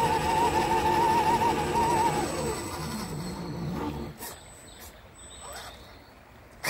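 Electric motor and gear whine of an RC crawler, wavering in pitch as the throttle and load change, then winding down and stopping a few seconds in. A short loud noise comes right at the end.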